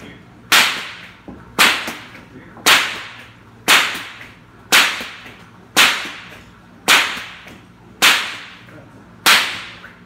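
Bullwhip cracking nine times, about once a second, each sharp crack trailing off in the room's echo.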